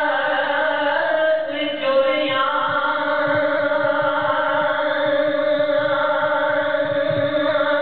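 A man chanting Punjabi Sufi poetry (kalam) in long, drawn-out melodic notes, with the pitch shifting about two seconds in.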